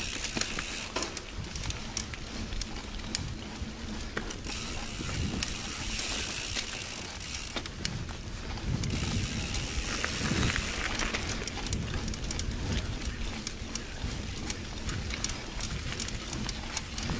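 Mountain bike coasting down a dirt trail: the rear hub's freewheel ratcheting, with the tyres rolling over dirt and small rattles and knocks as the bike runs over bumps.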